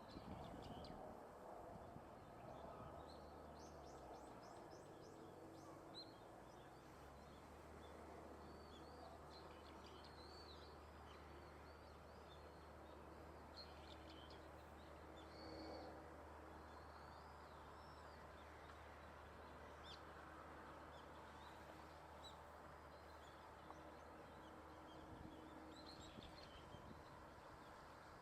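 Faint outdoor ambience of small birds calling, with many short high chirps and warbling calls scattered throughout, over a steady low hum.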